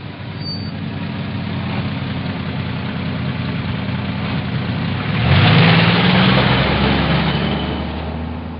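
Car engine idling steadily, then revving up about five seconds in and settling back.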